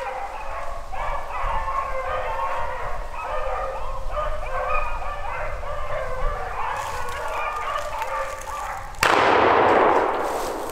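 A pack of beagles baying on a rabbit's trail, several voices overlapping. About nine seconds in comes a sudden loud shotgun shot that echoes and dies away over a second or so.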